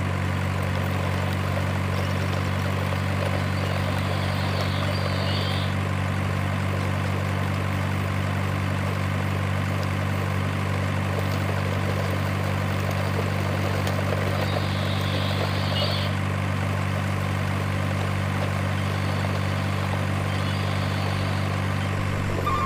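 Steady, unchanging low drone of an idling truck engine, laid over the toy trucks as they set off.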